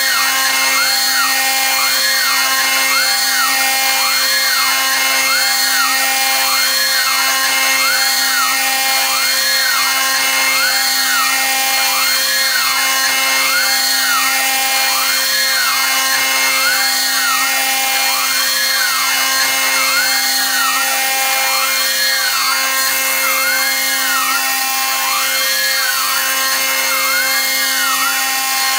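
CNC router spindle with an end mill climb-milling aluminium plate at a 0.5 mm depth of cut and 635 mm/min feed, while an air-blast nozzle hisses onto the cut to clear chips. Over a steady spindle whine, the cutting note rises and falls about once a second.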